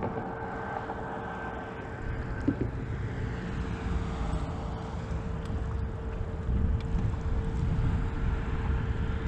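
Electric trolling motor on the bow of a bass boat running with a steady whine, under a low rumble of wind on the microphone that grows louder near the end.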